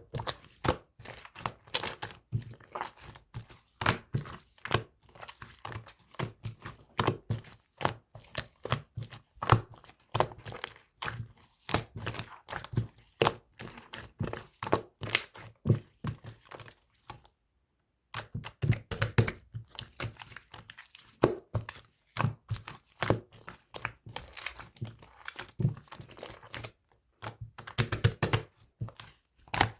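White slime being squished, folded and stretched by hand, giving a dense, irregular run of small clicks, pops and crackles from trapped air, with a short break about two thirds of the way in.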